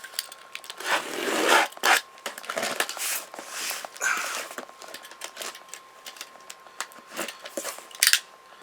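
Shipping packaging being handled and opened by hand: irregular rustling, crinkling and scraping, with a sharp, louder burst near the end.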